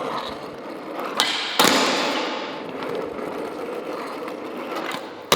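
A CNC-machined metal skateboard: a sharp snap about a second in and a hard landing just after, then the board rolling on concrete, its noise slowly fading, with another sharp hit right at the end.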